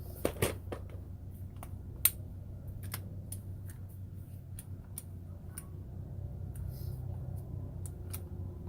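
Scattered light clicks and knocks from tools and pipe fittings being handled, over a steady low background hum.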